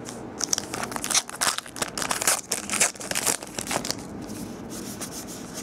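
A trading-card pack wrapper being torn open and crinkled, with dense rustling for the first three and a half seconds, then quieter rustling of cards being handled.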